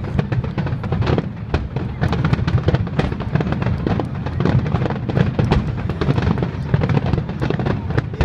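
Aerial firework shells bursting in a rapid, continuous barrage: many overlapping bangs, several a second, over a steady deep rumble.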